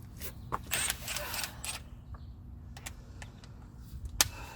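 Hand tools clicking and clinking on metal as a freshly loosened brake caliper bracket bolt is worked. There is a rattling scrape about a second in and a sharp metallic click near the end.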